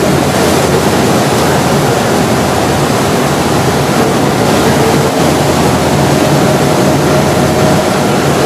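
Boat under way on a river: a steady, loud rush of churning wake water and wind.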